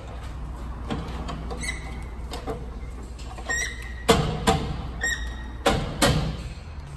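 Alignment wheel clamp and target being fitted onto a truck wheel: two pairs of sharp metal clacks in the second half, with a couple of short squeaks before them, over a low steady hum.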